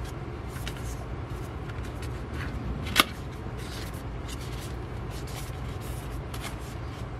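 A cardboard K-pop platform album being handled: its black folded card case slid out of the paper sleeve and unfolded, with rustling and scraping of card and one sharp click about three seconds in, over a low steady hum.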